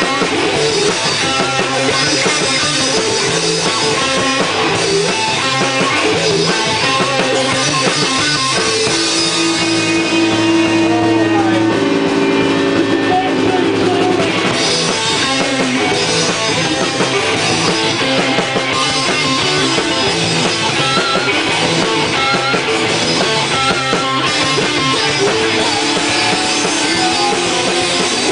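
Rock band playing: drum kit and guitar, loud and continuous, with a few seconds of long held notes about halfway through.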